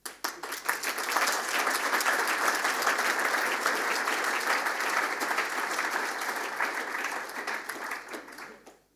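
Audience applauding, with many hands clapping together, fading out near the end.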